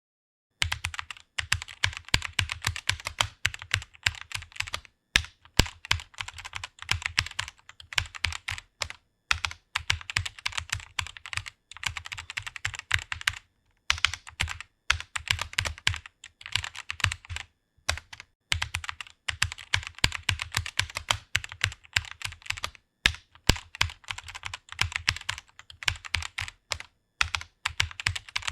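Computer keyboard being typed on quickly and continuously, rapid clicking keystrokes in runs with brief pauses between words or phrases, starting just under a second in.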